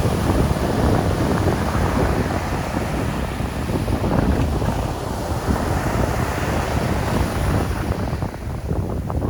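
Strong wind buffeting the microphone over heavy surf.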